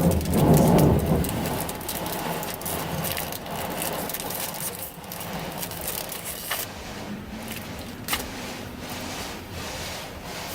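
Pokémon trading cards and foil booster-pack wrappers being handled: a dense crinkling and clicking that thins out about halfway through.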